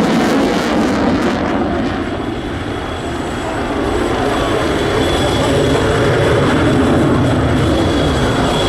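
Supermarine Spitfire flying past, its piston engine droning steadily. The engine sound eases slightly a couple of seconds in, then builds again.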